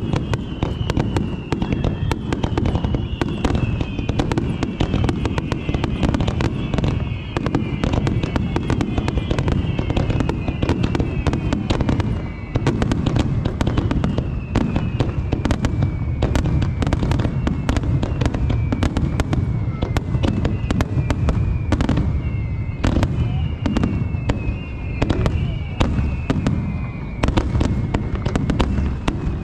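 Fireworks display in a dense, continuous barrage of bursts and crackling with a heavy low rumble. Many overlapping whistles fall in pitch, each over a second or two.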